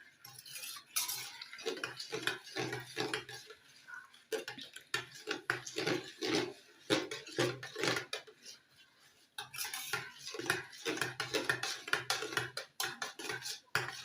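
A spoon clinking and scraping against a bowl in quick irregular strokes as SLS is stirred into water to dissolve. There is a short pause a little after nine seconds.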